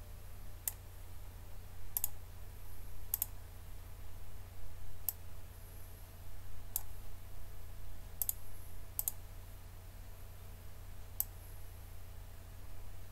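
Single computer mouse clicks, about eight, spaced a second or two apart and a few of them in quick pairs, over a low steady hum.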